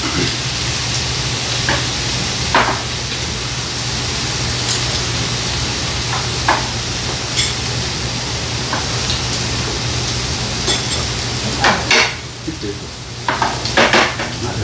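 Food sizzling steadily in a frying pan, with scattered light clicks and clinks of chopsticks and glassware, a few together near the end.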